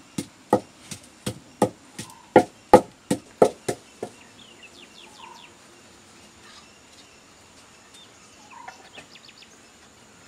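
Rapid chopping on a board, about three sharp strokes a second, stopping about four seconds in. After that, birds chirping faintly, with a couple of soft calls.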